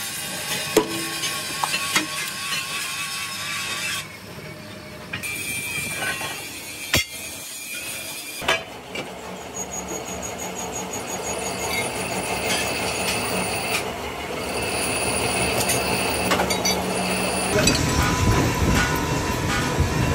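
Metalworking on steel truck-rim plate: a few sharp hammer strikes on metal, then a steady harsh machine noise with metallic squealing that gets louder near the end.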